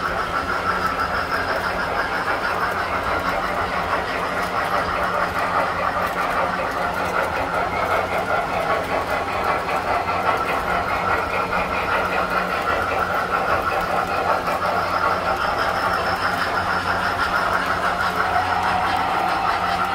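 Tinplate toy electric trains running on the layout track: a steady motor whine with an even low hum underneath.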